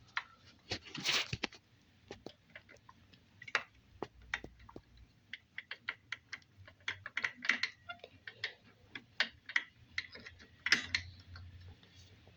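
Irregular small clicks and taps of metal parts and tools being handled while the brake pads are worked out of a Shimano disc brake caliper, with a few louder clicks about a second in and near the end.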